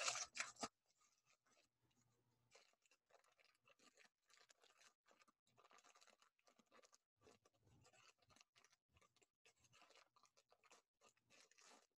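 A knife cutting back packing tape on a cardboard box: a short rasping scrape in the first second, then near silence with faint scattered crinkles and scratches as the box is worked open.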